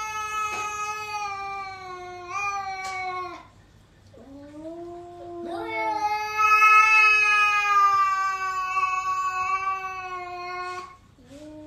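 Cat yowling at another cat in a face-off: long drawn-out yowls, each sliding slowly down in pitch, the longest about five seconds, with a short rising call between them. This is the threat yowl of an aggressive stand-off between cats.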